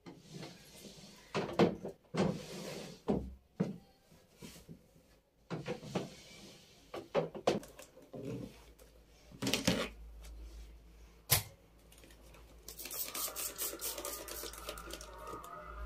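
Household objects being handled: scattered knocks and clicks with brief rustling, then a quick run of rapid clicks near the end.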